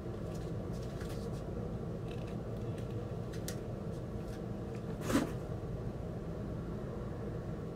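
Faint rustles and light clicks of a cardboard gatefold record jacket being handled, with one louder, brief brushing rustle about five seconds in, over a steady low hum.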